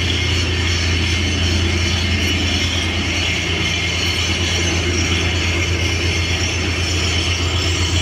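A steady, low machine hum with a fast, even pulsing, like a motor running close by.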